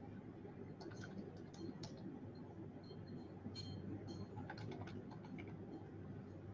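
Faint, irregular tapping of a computer keyboard being typed on, over a steady low hum.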